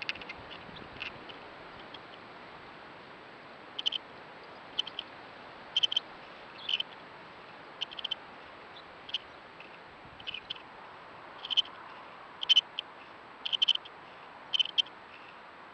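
Short, high squeaks from an unseen animal at a badger sett, singly and in quick pairs, sparse at first and then about one a second from about four seconds in, over a faint steady hiss. The recordist suspects they are yet-to-emerge badger cubs calling underground, though others doubt it.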